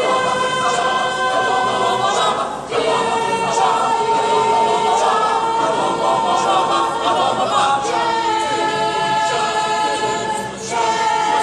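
Mixed chamber choir singing a cappella in held chords, breaking briefly between phrases twice, about two and a half seconds in and again near the end.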